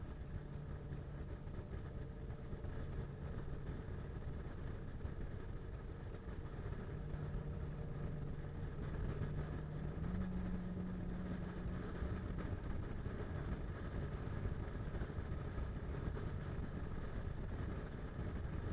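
Car driving at highway speed, heard from inside the cabin: a steady low rumble of engine and road noise. A faint low hum steps up in pitch about ten seconds in and fades out a couple of seconds later.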